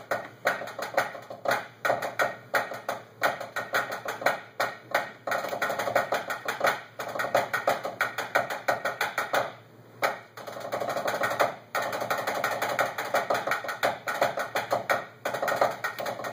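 Two drummers playing a rudimental snare etude in unison on practice pads, one a pad built to feel like a marching snare drum: fast, dense stick strokes, rolls and accents, with a few short breaks.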